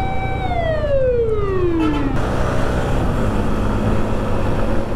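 Ambulance siren holding one steady tone, then sliding steeply down in pitch and dying away about two seconds in. After that comes a steady rush of motorcycle engine and wind noise from a Suzuki Gixxer SF.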